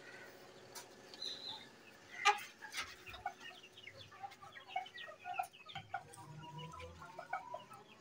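Chickens clucking in short, scattered calls, with two sharp knocks about one and two seconds in; the second knock is the loudest sound.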